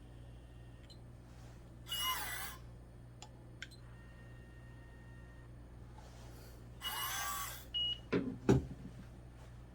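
Electronic pipette's small motor whirring twice, each stroke under a second with a sweeping pitch and a short beep: the plunger drive aspirating and dispensing. A few low knocks follow near the end.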